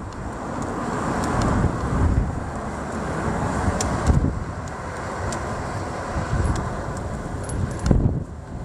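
Wind buffeting the microphone: a gusting low rumble and rushing noise that swells for a few seconds and eases, with a few faint clicks.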